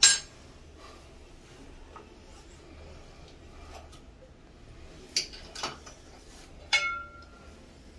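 Metal tools and parts clinking as they are handled on a tiled floor: a sharp clink at the start, two small taps about five seconds in, and a metallic clink that rings briefly a little before the end.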